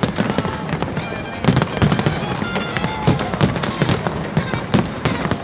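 Fireworks display bursting in rapid, irregular bangs, several a second, with music and crowd voices underneath.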